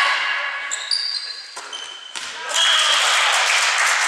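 End of an indoor volleyball rally: players shouting, short high sneaker squeaks and a couple of sharp ball strikes in the first two seconds. From about two and a half seconds in, a team cheers and claps at winning the point, echoing in the sports hall.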